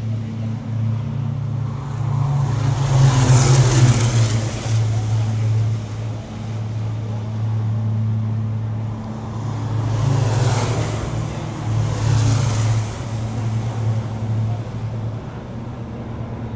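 Diesel race trucks passing on the circuit, heard as three rising and fading swells: a big one about three seconds in, then two close together near the ten- and twelve-second marks. Under them runs a steady low engine drone.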